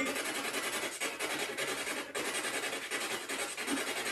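Choppy radio static, a steady hiss that flutters quickly and evenly in loudness, typical of a ghost-hunting spirit box sweeping through radio stations while it is left to answer.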